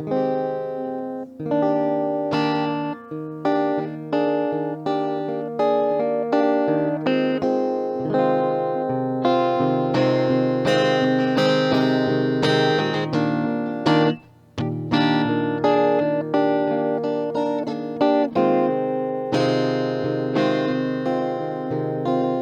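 Solo guitar playing a song's instrumental introduction: plucked notes and chords in a steady, repeating pattern, with a brief stop about fourteen seconds in.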